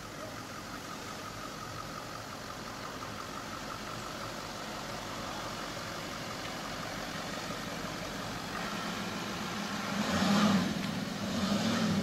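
Audi Q7 SUV engine running as the vehicle drives through soft sand, slowly getting louder as it approaches. About ten seconds in, engine and tyre noise swell sharply as it passes close.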